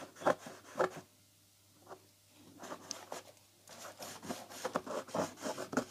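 Fingertips rubbing powder makeup onto the paper backdrop of a wooden shadow box, giving short scratchy strokes. There are a few strokes at first, a pause of about two seconds, then a run of quicker, softer strokes.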